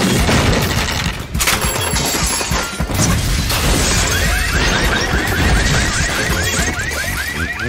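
Cartoon slapstick brawl sound effects: a dense jumble of crashes and smashes over a music score. About halfway through comes a rapid string of short squeaky chirps, about five a second.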